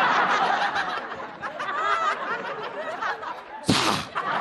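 Studio audience laughing together, with a short, loud hiss into the microphone near the end as the comedian imitates a cobra.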